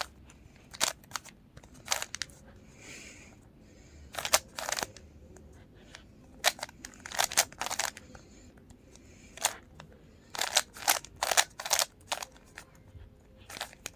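Plastic Rubik's Cube layers being turned quickly, clicking and clacking in irregular bursts of several turns with short pauses between.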